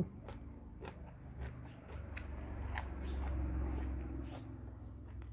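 Close-up eating sounds of a person biting and chewing food, with irregular crunches and mouth clicks.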